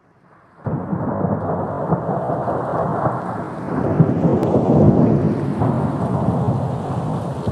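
Thunderstorm: a continuous low rumble of rolling thunder with rain. It starts abruptly under a second in and swells a little about halfway through.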